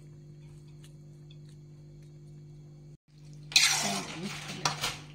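A faint steady hum, then from about three and a half seconds in, a loud stretch of a steel spoon scraping and clinking against a metal pot while spreading cooked rice.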